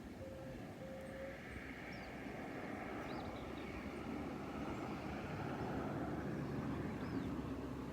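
A vehicle's steady rumble growing slowly louder as it approaches, with a broken steady tone in the first second or so and a few faint bird chirps.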